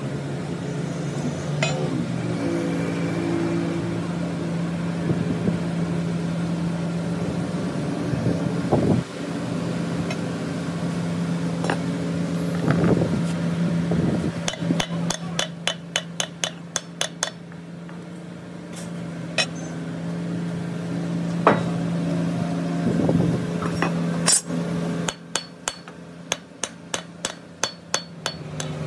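Hammer tapping on steel at a cylinder head repair: single knocks, then two runs of quick taps at about three or four a second, one midway and one near the end, over a steady low machine hum.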